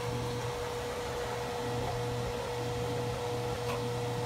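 A fan or small motor running steadily: an even whir with a low hum and a constant mid-pitched whine.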